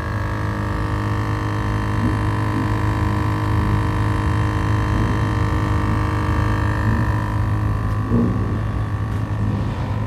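An engine running steadily at an even pitch, a constant hum with no revving.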